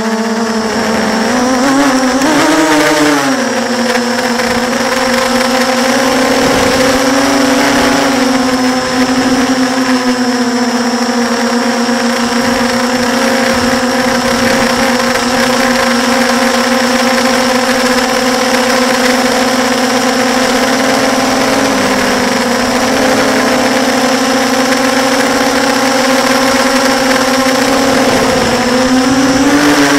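Brushless motors and propellers of a 6-inch FPV quadcopter whining steadily in flight, heard through its onboard camera. The pitch rises and falls briefly with the throttle about two seconds in and again near the end.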